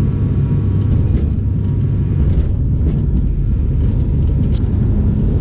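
Airliner cabin noise: a steady low rumble from the engines and airframe, with a brief sharp click about four and a half seconds in.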